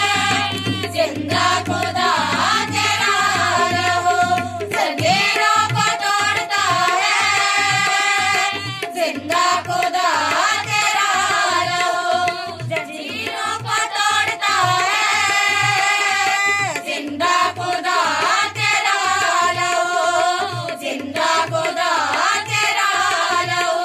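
Women singing a Hindi Christian worship song with music. A held low note plays under the voices at first, and a steady hand-drum beat comes in about five seconds in.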